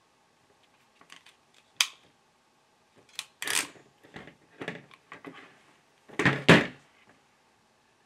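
Hand crimp tool squeezing an F connector onto coaxial cable, then being opened to release it. There is one crisp click about two seconds in, then a run of metal clacks and handling rustles, loudest near the end.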